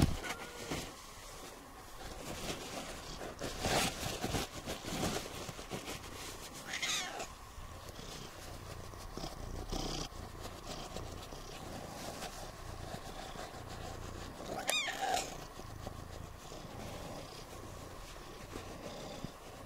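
Siamese cat purring while being rubbed dry with a towel, the low purr pulsing under the rustle of the towel. A few louder rustles and knocks break in, the loudest near the start.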